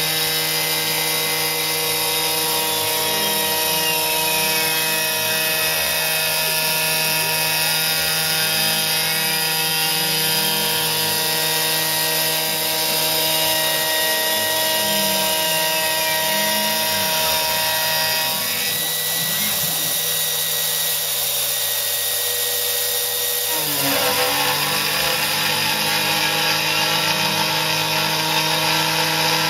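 CNC router milling aluminium: the spindle running steadily as the end mill cuts, with the machine's whines rising and falling over a few seconds as the cutter traces the circle. About two-thirds of the way in the steady tones give way to a rougher cutting noise for a few seconds, then return.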